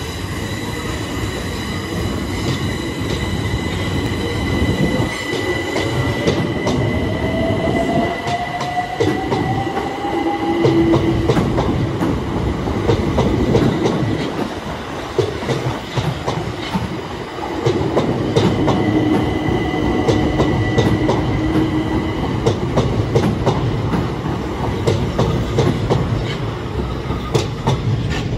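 A pair of Class 376 Electrostar electric multiple units departing. Their motors whine in a pitch that rises over several seconds as they pick up speed, over a steady high tone, while the wheels click over rail joints and points.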